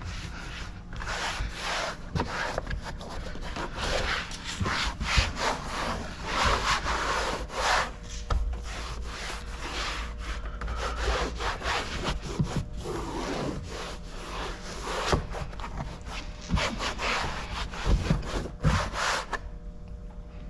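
Rapid, irregular rubbing and wiping strokes worked over a freshly tinted car door window. They stop shortly before the end.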